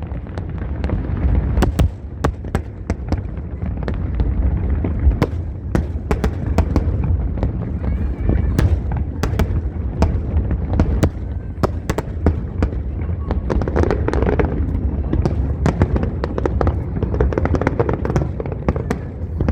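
Aerial fireworks display: a continuous barrage of deep booms from bursting shells, with many sharp cracks and crackles scattered through it. Crowd voices rise in the mix about two-thirds of the way in and again near the end.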